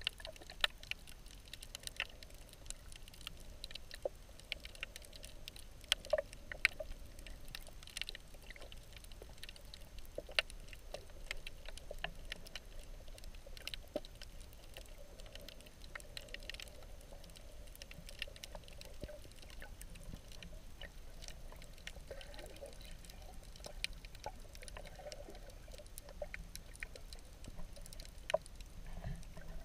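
Underwater ambience heard through a submerged camera: a low rumble of moving water dotted with many irregular sharp clicks and crackles.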